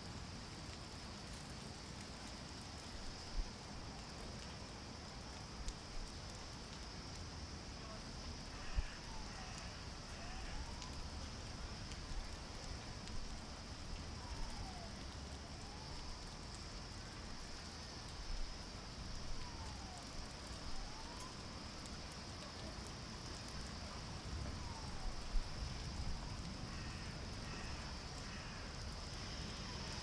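Outdoor suburban ambience after rain: a steady low rumble of distant traffic under a constant high hiss. From about ten seconds in, a faint distant siren slowly wails down and up every few seconds. A few bird chirps and occasional small knocks come through now and then.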